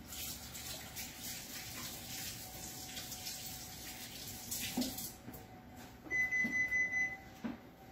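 Kitchen faucet running water into the sink, with a few light clatters, easing off about five seconds in. About six seconds in, a steady high-pitched tone sounds for about a second.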